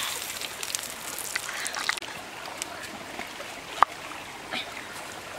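Outdoor ambience with a steady hiss of running water, scattered small clicks and taps, and one sharp knock about four seconds in.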